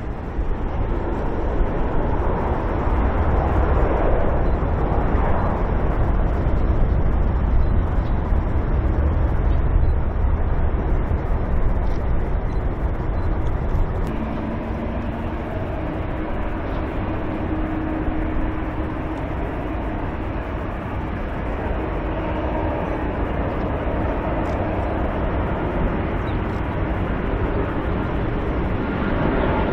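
Steady low rumble and hiss of a distant Boeing 747-400 taxiing on its jet engines, mixed with outdoor wind noise; the sound drops a little about halfway through.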